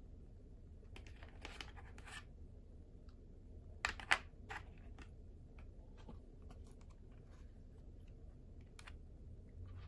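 Rustling and sharp clicks of a stylus pen's cardboard box and paper insert card being handled, with the loudest pair of clicks about four seconds in.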